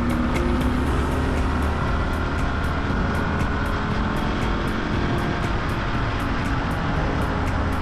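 Small motorcycle running at a steady speed, engine rumble and road noise, under background music with a steady beat of about four ticks a second.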